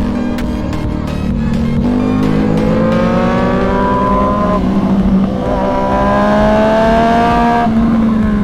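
Sport motorcycle engine with a full aftermarket exhaust pulling hard under acceleration. The revs climb steadily, drop at an upshift about four and a half seconds in, climb again and drop at a second upshift near the end.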